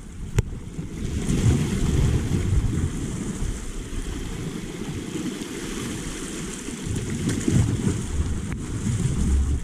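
Small waves washing and surging over a rocky reef shore, with wind buffeting the microphone in a low rumble. A single sharp click about half a second in.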